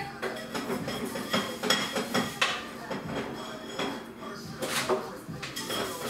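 Dishes and cutlery clinking and knocking together as they are handled at a kitchen sink, in a quick irregular series of short clatters.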